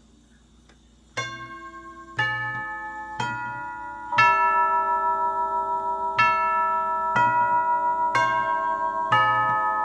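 1954 NuTone four-note door chime playing its four-note sequence twice. Each note lands about a second after the last, opens with a soft knock of the striker and rings on under the next. The strikers, newly replaced, are hitting the chimes cleanly.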